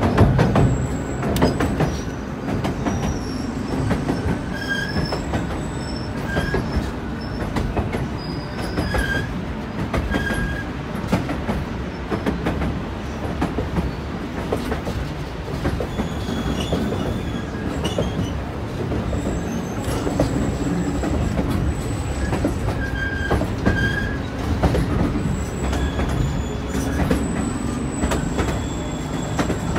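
Narrow-gauge passenger train running along the track: a steady rumble and rattling clatter of wheels on rail, with short high-pitched wheel squeals coming and going throughout.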